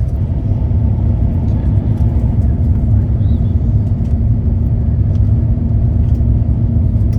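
Steady roar of engine and airflow noise heard inside the cabin of an Airbus A350-900 on approach with its landing gear down. A steady hum joins the roar about a second in.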